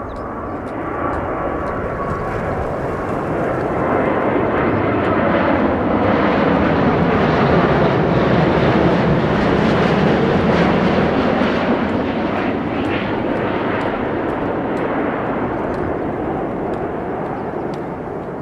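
Boeing 787-8 Dreamliner jet engines at approach power as the airliner passes low overhead on final approach: a rushing jet roar that builds to its loudest about halfway through, then fades as it moves away, with a faint whine near the start.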